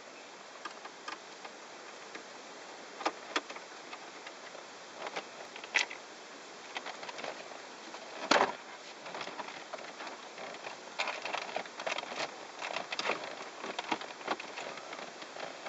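Scattered small clicks and knocks of a screwdriver, screws and plastic trim being handled while a car stereo is unscrewed from the dashboard, with one louder knock about eight seconds in and a quick run of light clicks in the last few seconds. A faint steady hiss and thin high whine lie underneath.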